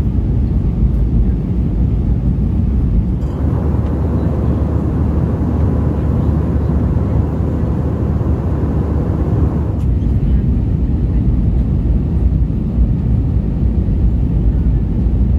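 Airbus A320 cabin noise: a steady, loud low rumble of the engines and rushing air, with a brighter hiss added from about three seconds in until about ten seconds, starting and stopping suddenly.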